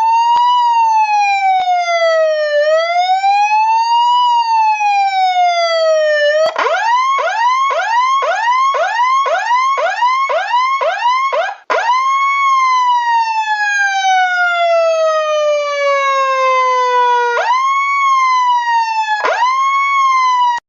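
Electronic emergency-vehicle siren. It starts with a slow wail rising and falling, switches to a fast yelp of about three sweeps a second, and after a brief break gives a long slowly falling tone that jumps sharply back up twice near the end.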